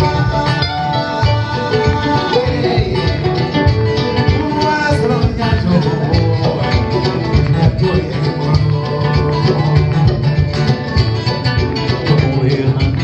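Live acoustic band music mixing bluegrass and West African styles: guitar and kamale ngoni plucking interlocking lines over a steady rhythmic pulse.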